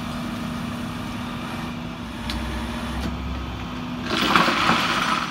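Flatbed tow truck's engine running steadily at idle, a low, even hum. About four seconds in, a louder stretch of noise comes in for about a second.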